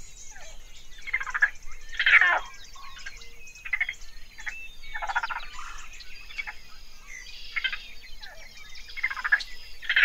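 Raccoons chittering: a run of short, squeaky, overlapping calls, with louder clusters about two, five and nine and a half seconds in.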